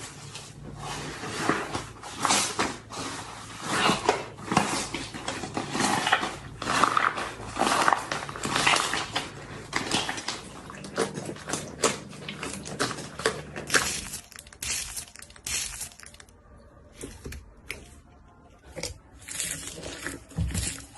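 Slime being squeezed and kneaded by hand: irregular wet, sticky crackles and small pops. They are dense for most of the stretch, then sparser and quieter for a few seconds before picking up again near the end.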